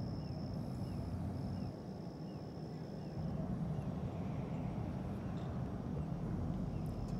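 Outdoor ambience with no voices: a steady low rumble, a high thin buzz that breaks off and resumes a few times, and faint small chirps repeating about twice a second in the first half.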